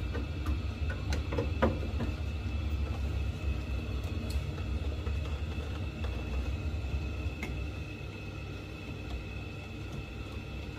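Steady low hum of an Ideal Logic gas combi boiler running, with a faint steady high whine. A few light clicks come in the first two seconds.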